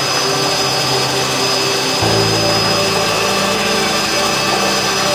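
Helicopter in flight: steady engine and rotor noise with a high, steady whine. The low drone shifts about two seconds in.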